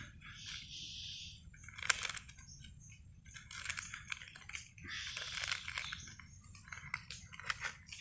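A palm squirrel gnawing at a plastic biscuit wrapper: irregular spells of crinkling and crunching, with a sharp crackle about two seconds in.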